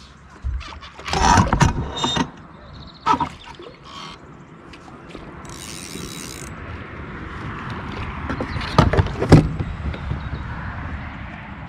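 Knocks and rattles of handling on a fishing kayak: a cluster about a second in, one near three seconds and a loud pair near nine seconds, over a hiss that swells in the second half.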